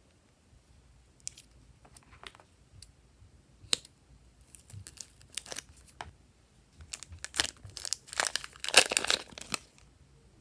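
Slime being handled and mixed: scattered sticky clicks, then a run of dense crackling and popping in the second half, loudest near the end.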